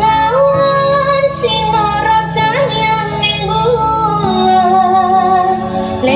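Recorded song with a female singing voice, played loud through a sound system during an audio check; long held, sliding vocal notes over a steady bass line that changes pitch about four seconds in.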